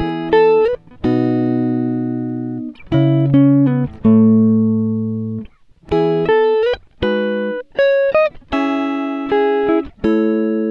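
Background instrumental music: plucked notes and chords that ring and fade, in short phrases with brief gaps between them.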